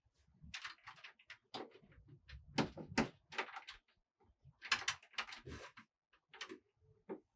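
Knocking on a wooden front door in quick bursts of several strikes, then the door is opened.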